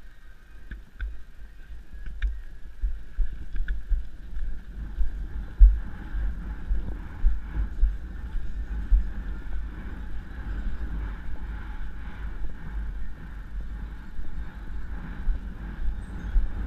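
Wind buffeting a helmet camera's microphone while a horse canters on turf, with dull, uneven hoofbeats. The buffeting picks up about a second in.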